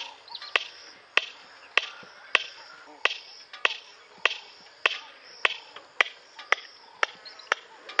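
Red-crested korhaan calling: a steady series of sharp, dry clicks, a little under two a second, quickening slightly near the end. This is the opening clicking phase of the male's display call.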